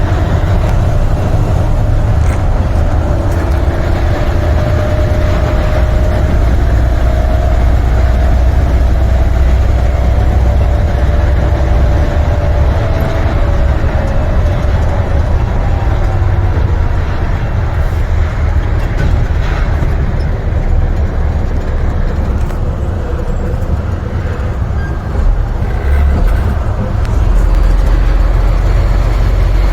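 Semi-truck's MaxxForce 13 diesel engine and road noise while driving on the highway, heard from inside the cab: a steady deep rumble with a faint whine over it in the first half. The rumble eases for a few seconds and then grows deeper near the end.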